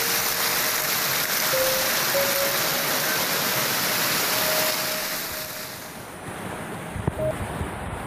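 Rushing water of a hill stream, a steady loud hiss that fades away about six seconds in.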